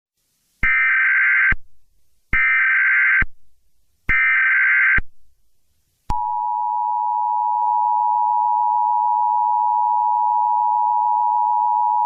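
Mock Emergency Alert System alarm: three one-second blasts of SAME digital header tones with gaps of silence between them. About six seconds in, the steady two-tone EAS attention signal starts and holds without a break.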